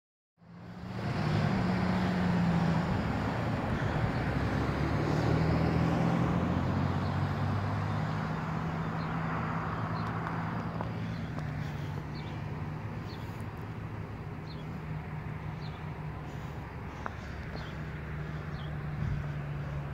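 Road traffic on a highway: a steady hum of vehicles with low engine tones, loudest in the first several seconds and easing off somewhat after.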